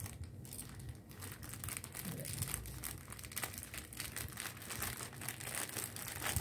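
Black plastic courier mailer bag crinkling and crackling as it is slit with a small knife and pulled open by hand, an irregular run of rustles that grows busier after about a second.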